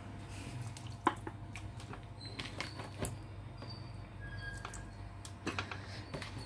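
Quiet kitchen handling noises: scattered light clicks and taps with a few brief high squeaks, over a low steady hum. The sharpest clicks come about a second in and about three seconds in.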